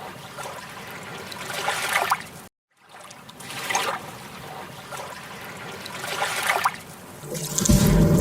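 Water sound rising and falling in surges every two to three seconds, with a brief dropout about two and a half seconds in. Music with a deep bass comes in near the end.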